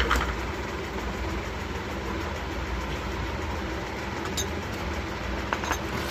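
Steady low background rumble, with a few light clicks of a steel spoon against a glass bowl as salt is stirred into powder: one at the start, one about four and a half seconds in, and a couple near the end.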